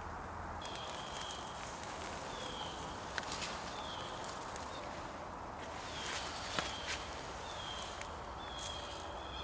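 Sausage patties sizzling on a wire grill over campfire coals. A few sharp clicks and taps come as English muffin halves are set on the grate, and a short high falling whistle repeats about once a second.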